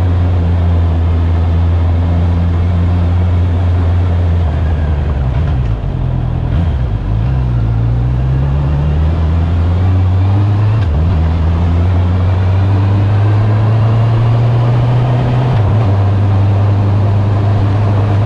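Honda CB650R's inline-four engine running under way on a ride, its note dipping and wavering about a third of the way in, then climbing and dropping abruptly about two-thirds through, over a steady hiss of tyres on wet cobblestones.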